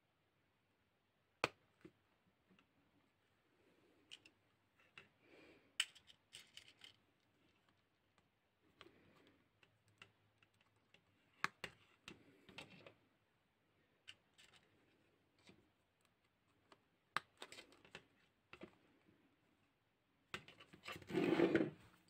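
Faint, scattered clicks and light handling noises from fingers working a brass-wire and leather crown band, with a louder rustle about a second and a half long near the end.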